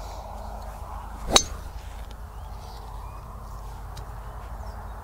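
A golf driver striking a teed ball: one sharp, ringing click about a second and a half in.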